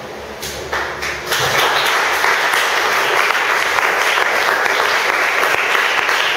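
Congregation applauding: a few scattered claps about half a second in, swelling to steady, full applause by about a second and a half in.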